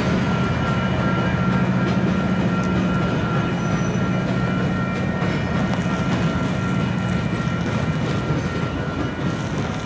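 Diesel-hauled Union Pacific freight train passing, its locomotive engines giving a steady low rumble with a thin steady whine above it and light rail clicks, fading slightly near the end.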